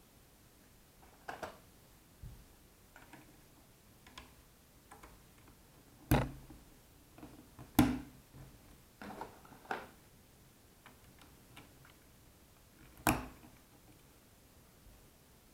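Irregular light clicks and taps, with three louder knocks spaced a few seconds apart; no siren is heard.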